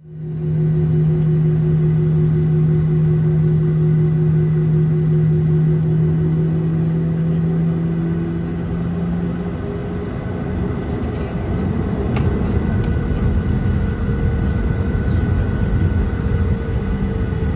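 Boeing 737-800 cabin noise near the wing: the CFM56 engines give a steady low hum with a few higher tones. About ten seconds in the hum gives way to a louder, rougher rumble whose tones edge upward.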